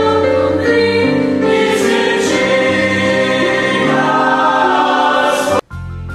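Church choir singing held chords with a steady low accompaniment; the singing cuts off suddenly about five and a half seconds in, leaving a quieter, steady music bed.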